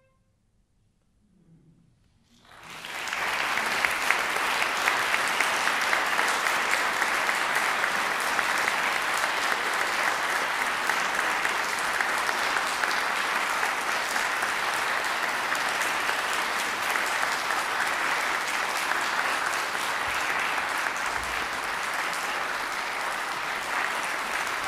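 Audience applause, breaking out about two and a half seconds in after a short near-silence, then dense and steady.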